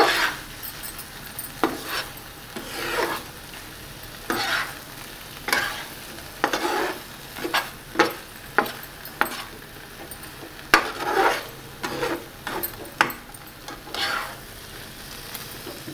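Spatula scraping and stirring a thick mashed-potato and meat filling around a frying pan, in irregular strokes about once a second, over a light sizzle. The water in the filling has nearly cooked off, so it is being stirred to keep it from sticking to the pan.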